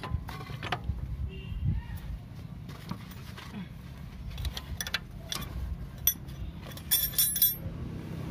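Metal hand tools clicking and clinking, with a quick run of bright metallic clinks about seven seconds in, over a low steady hum.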